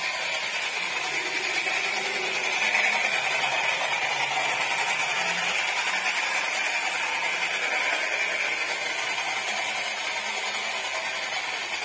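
Battery-powered tin toy TV truck's small electric motor and gears whirring steadily as it drives along.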